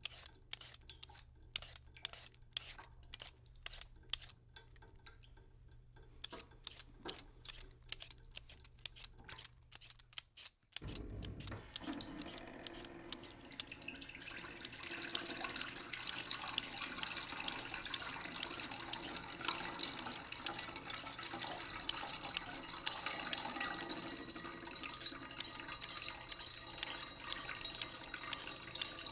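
A kitchen knife clicking against a cutting board in quick, uneven strokes, as a purple carrot is cut. About ten seconds in the sound cuts abruptly to water running steadily from a tap into a sink.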